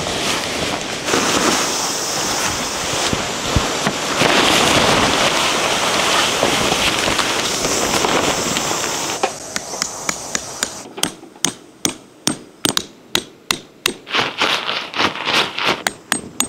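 Sharp strikes at about three a second through the last six seconds: a hammer driving tent pegs into the ground. Before that there are about nine seconds of dense, steady rushing noise, louder than the strikes.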